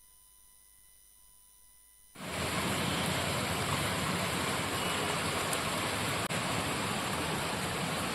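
Near silence with a faint steady hum for about two seconds, then a loud, steady rush of floodwater starts suddenly: water flowing fast along a flooded street and around a car's wheels.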